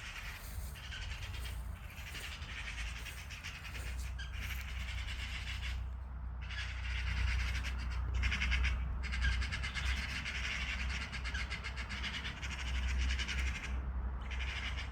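Magpie chattering: a rapid harsh rattle in long bouts broken by several short pauses, over a low steady rumble.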